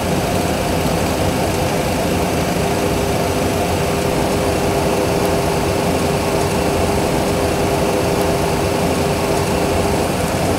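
Steady cockpit noise of a Boeing 737 Classic flight simulator in an emergency descent, with the thrust levers at idle and the speed brake extended. A steady hum joins about two and a half seconds in and fades near the end.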